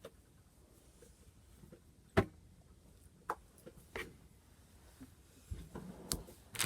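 Plastic snack packaging handled by hand: a few sharp taps and clicks, the loudest about two seconds in, then a soft crinkling rustle near the end.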